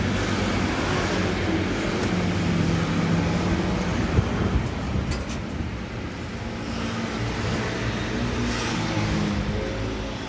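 Steady background din of a busy street-food stall and walkway, with a single sharp click about four seconds in.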